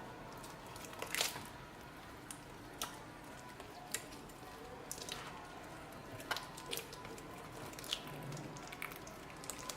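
Slime being squished and handled, giving scattered sticky clicks and small pops at irregular moments, the loudest about a second in.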